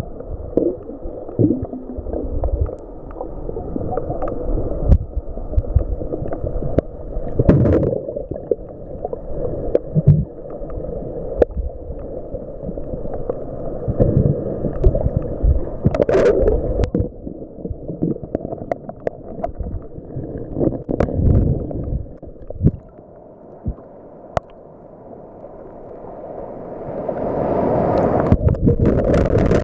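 Turbulent surge water heard through an underwater camera housing: muffled rumbling and gurgling from churning, bubble-filled water under breaking waves, with scattered knocks. Near the end the camera breaks the surface and the sound turns to the brighter hiss and wash of waves.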